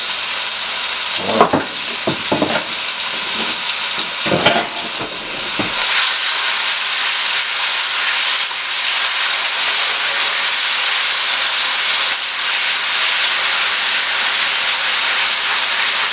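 Seasoned chicken breast pieces sizzling steadily in hot oil in a stainless steel skillet. A utensil knocks and scrapes against the pan several times in the first six seconds as the chicken is turned.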